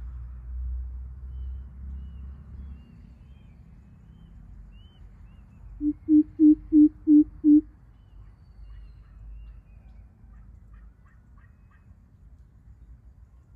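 Greater coucal giving its deep hooting call: a run of about six low, evenly spaced hoots at about three a second, the first one softer.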